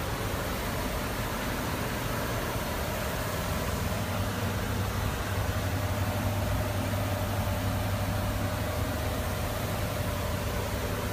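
Steady low hum with an even hiss underneath, unchanging throughout: continuous background noise.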